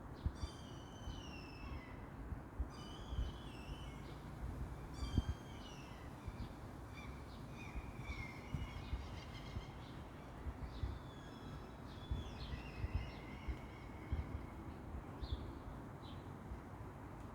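Songbirds singing, several overlapping phrases of short whistled and trilled notes, over a steady low outdoor rumble.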